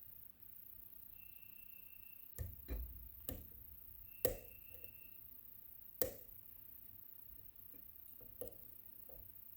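Metal lock-picking tools clicking and tapping inside an Ikon WSW sidebar lock as a slider is probed: about six sharp, separate clicks at uneven spacing, with two faint, brief high tones between them.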